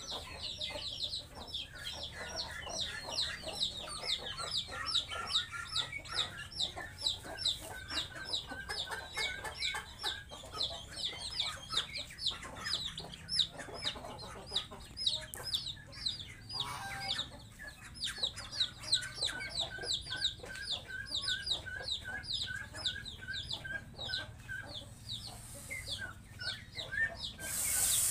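Chickens: chicks peeping in a rapid, continuous run of short, high, falling notes, several a second, with hens clucking underneath. A short rush of noise comes near the end.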